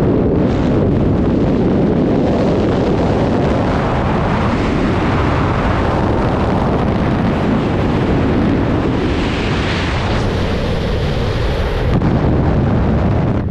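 Freefall wind blasting over an action camera's microphone: a loud, steady rush of buffeting wind noise, changing in tone around ten and again about twelve seconds in.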